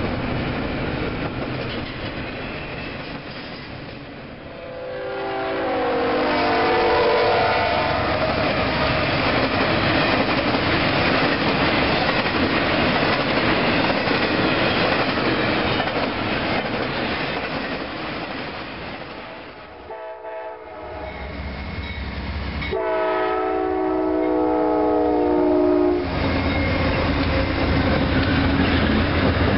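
Double-stack container freight train rolling past with steady wheel clatter; about five seconds in, a train horn sounds with its pitch falling. After a break, a train horn blows a steady chord for about three seconds as an Amtrak passenger train rolls past with a low hum.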